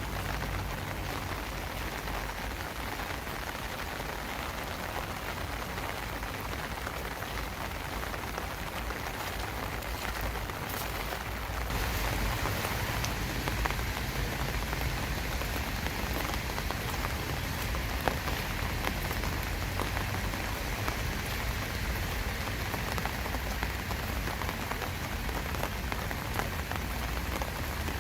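Steady summer rain falling, a dense even hiss of drops with many small distinct drop ticks; it grows a little heavier about twelve seconds in.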